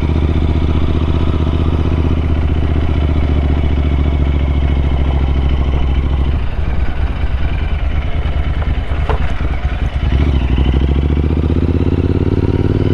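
Royal Enfield Interceptor 650 parallel-twin engine running under way. It holds steady for the first half, the revs drop off for a few seconds, then climb again near the end.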